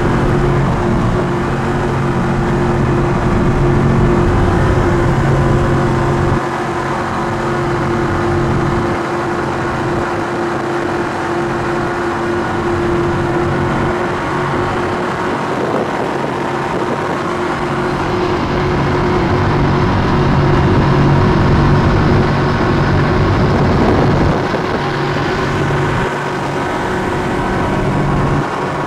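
Twin 1200-horsepower Mercury engines of an MTI 48 race catamaran running hard at high speed: a steady, even-pitched drone under rushing wind noise, dipping briefly twice.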